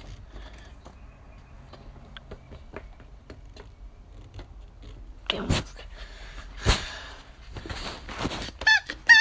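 Hand rubbing and squeezing a child's bike handlebar grips, with small clicks and scrapes and a few louder knocks about five and a half and seven seconds in. Near the end a dog starts whining in short high squeaks.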